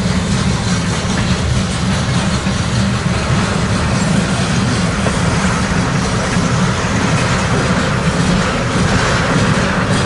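A freight train's covered hopper cars and tank cars rolling past, a steady rumble and rattle of steel wheels on the rails, with wind noise on the microphone.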